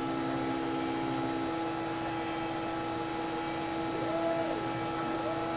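Water-cooled CNC router spindle driven by a variable frequency drive, running steadily at high speed: a constant whine over even noise with a high-pitched drive tone. Two short tones rise and fall near the end.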